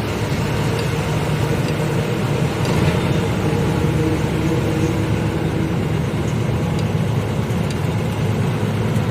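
Lorry engine running steadily with the truck under way, under a constant rush of road noise.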